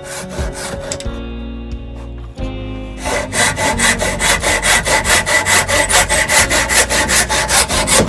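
Hand saw cutting through wood in quick, regular back-and-forth strokes, about four a second. A few strokes at the start, then a steady run from about three seconds in.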